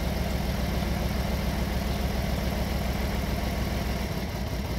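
Six-cylinder car engine idling with a misfire during a power balance test, with cylinder one cut out. The low idle note changes about four seconds in.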